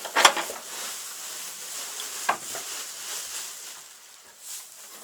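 Dry straw rustling and crackling as it is pulled in chunks from the bottom of a bale, with two sharper crackles, one right at the start and one about two seconds in.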